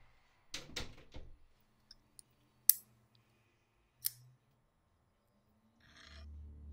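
Sharp clicks of a pair of sunglasses being handled and their hinged arms snapped open, the loudest about two and a half seconds in and another about a second and a half later, after a few softer clicks near the start. Near the end a low drone fades in.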